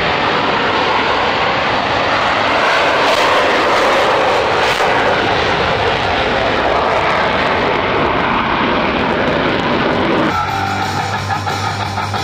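Jet engine noise from Blue Angels F/A-18 Super Hornets accelerating down the runway on their takeoff roll, a loud, steady rush. About ten seconds in it cuts suddenly to rock music.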